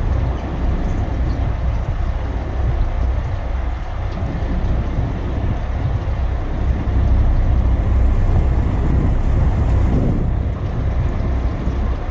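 Wind buffeting the microphone over a steady low rumble on a boat at sea.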